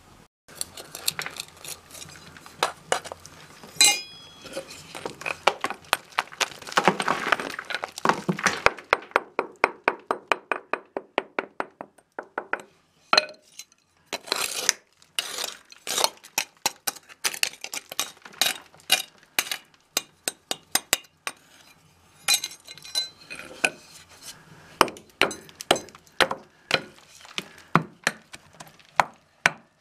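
Hand hammer chipping away at the concrete edge of a window opening: many sharp, clinking blows, with a fast run of quick strikes about seven to nine seconds in.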